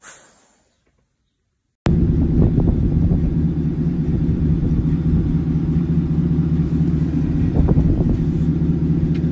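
A motor vehicle's engine idling steadily, starting abruptly about two seconds in.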